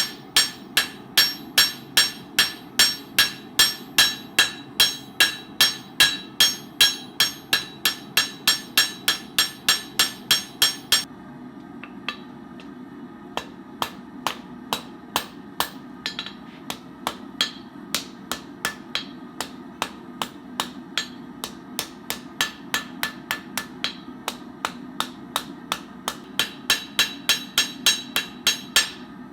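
Hand hammer striking steel on an anvil, as in forging the wrench toward a blade shape: a steady beat of about three blows a second, each with a metallic ring. For about the middle half the blows are lighter and sparser, then heavy regular blows resume near the end.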